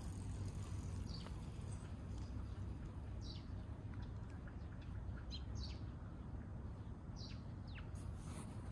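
Small birds chirping in short, high calls that drop in pitch, several scattered through, over a steady low rumble of outdoor background noise.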